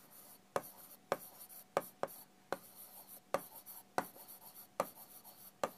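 Marker pen writing on a whiteboard: a string of short, irregular strokes and taps as letters are drawn, faint against room tone.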